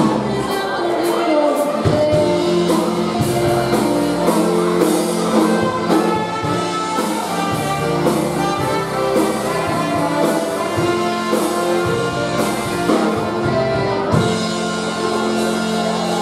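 Live polka dance band playing amplified in a large hall: accordion, saxophone and drum kit, with held melody notes over a steady beat.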